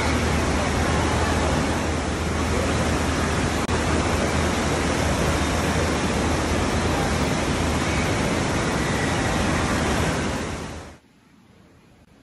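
Steady loud rushing noise with a low hum underneath, cutting off abruptly about a second before the end.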